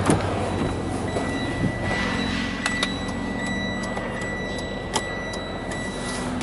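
Semi-truck cab door latch clicking open, then a steady high warning tone sounding in the cab, with a low hum for a few seconds and a few sharp clicks of switches or the door.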